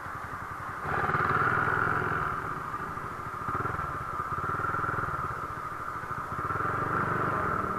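Z200S motorcycle engine running at low revs through an open dual-outlet Akrapovic muffler and 51 mm elbow with no silencer, as the bike rolls slowly onto gravel. The engine picks up about a second in, then holds steady.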